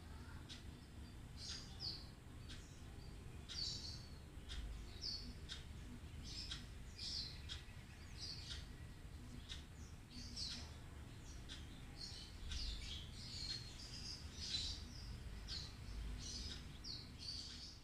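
Small birds chirping over and over in short, high notes, with faint ticks scattered between them.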